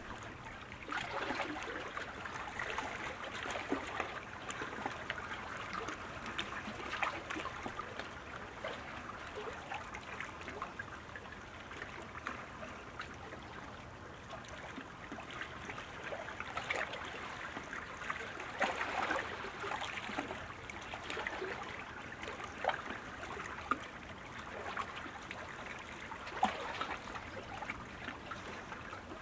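Water trickling and splashing, a steady run of many small irregular splashes.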